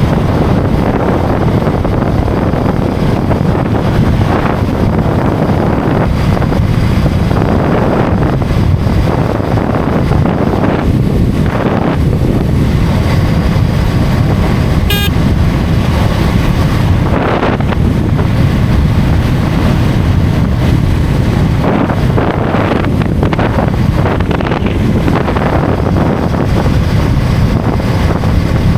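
Heavy wind buffeting on the microphone of a motorcycle at highway speed, a steady, low rushing noise with road noise underneath. A brief sharp click comes about halfway through.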